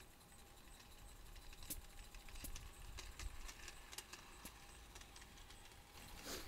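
Faint, irregular metallic clicking of a garden-scale model train's wheels rolling over the rail joints, with a low rumble as the wagons pass. A brief rushing noise comes near the end.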